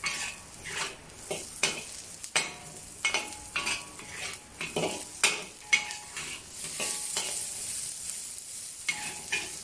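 Metal wok spatula scraping and clanking against a cast iron wok in quick, irregular strokes as asparagus stems are stir-fried in hot oil, over a steady sizzle that grows louder in the last few seconds.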